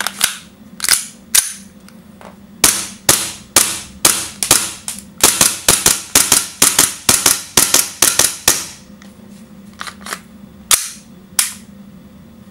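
WE M&P 9 gas blowback airsoft pistol firing, each shot a sharp crack with the slide cycling. A few spaced shots build into a quick string of about three to four shots a second, then slow to a few single shots near the end.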